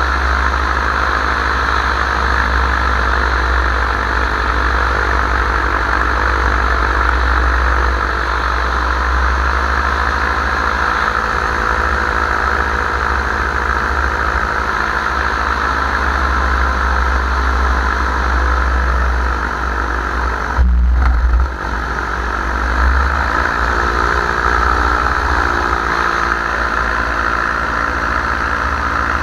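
Paramotor engine and propeller running steadily in flight, with heavy wind rumble on the microphone. Just past two-thirds of the way through, the sound dulls for about a second, and then the engine's pitch wavers.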